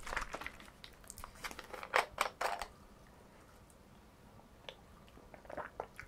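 Plastic Diet Coke bottle being handled: a run of sharp crackles and clicks as it is gripped and its cap twisted off, then a few faint clicks near the end.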